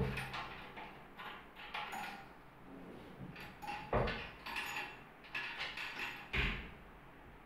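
Knocks and thuds from a new laminated-plywood wardrobe being handled as its drawers are slid shut. There are two heavier thumps, about four seconds in and again about two seconds later.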